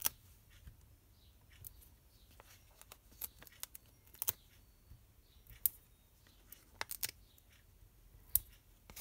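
Irregular small sharp clicks and ticks from peeling foam adhesive dimensionals off their backing sheet and pressing them onto a piece of patterned card stock.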